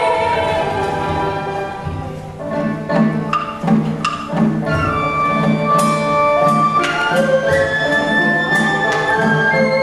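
Traditional Vietnamese water-puppet theatre music: melodic instruments hold long notes and step between them over a repeating low beat. Sharp percussion strikes come in about two and a half seconds in.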